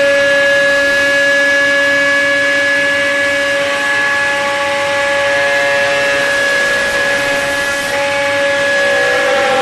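CNC wood shaper spindle running at high speed with a steady whine while its profile cutter mills the curved edge of a wooden knife-handle blank. The tone shifts a little a few times as the cutter bites into the wood.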